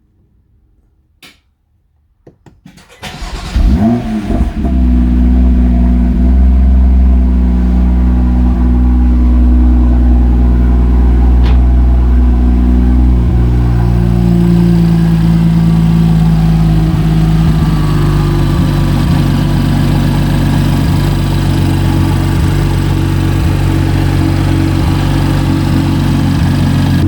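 BMW M2's N55 turbocharged inline-six started for the first time after an oil change. After a click and a brief crank it catches about four seconds in with a rev flare, then settles into a steady fast idle that drops slightly in pitch about fourteen seconds in.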